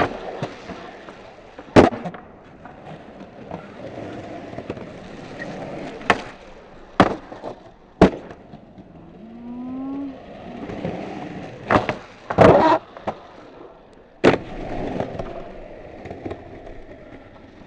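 Skateboard wheels rolling over a concrete skatepark bowl, with repeated sharp clacks of the board hitting the ground, about eight times, two in quick succession about 12 s in.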